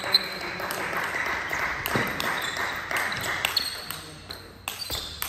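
A table tennis ball struck with a sharp ping, then several seconds of spectators clapping and calling out in a sports hall, fading away near the end.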